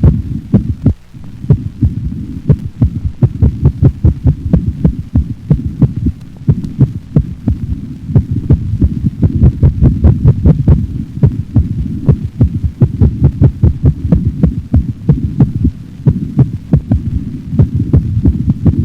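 A dog's heart sounds recorded through a stethoscope: rapid, unevenly spaced beats over a steady low rumble.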